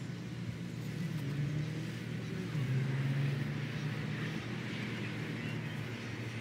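A motor vehicle's engine running with a steady low drone that swells from about a second in, peaks mid-way, and eases off again.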